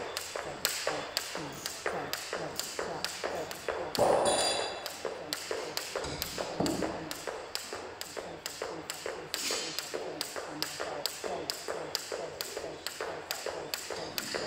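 Jump rope skipping, single-unders: the rope taps the wooden platform and the feet land in a steady rhythm of about three taps a second. One louder knock with a brief ringing tone about four seconds in.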